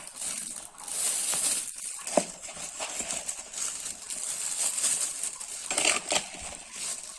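Plastic freezer bag crinkling and rustling as sugared strawberries are spooned into it, with a sharp clink about two seconds in.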